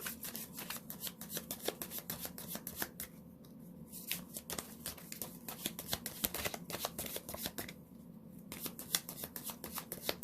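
A deck of reading cards being shuffled by hand: rapid runs of soft card clicks and riffles in three spells, with brief pauses about three and eight seconds in.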